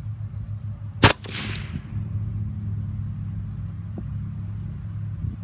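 A single rifle shot from a suppressed HK MR556 (5.56 mm) about a second in, a sharp crack with a short trailing echo.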